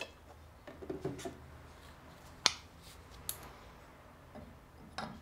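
A few scattered clicks and light knocks from shock parts and tools being handled on the workbench, with one sharp click about two and a half seconds in.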